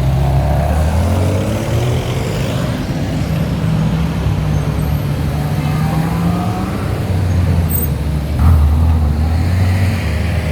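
Ferrari engines running in slow parade traffic: a steady low engine rumble, with an engine rising in pitch as it revs or pulls away twice, and a sudden louder rise near the end.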